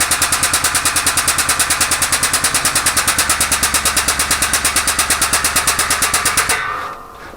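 Air-driven hydraulic pump of a shop press running, a fast steady chatter of about a dozen beats a second, as the press pushes a new suspension bush into its arm. It stops about six and a half seconds in, once the bush is home.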